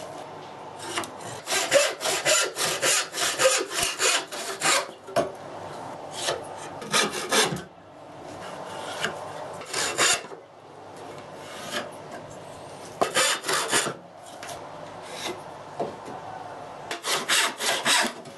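Quick back-and-forth strokes of a hand tool on pallet wood, rasping in bursts of several strokes with short pauses between.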